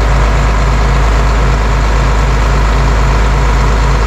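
Tractor engine idling steadily with an even low chugging.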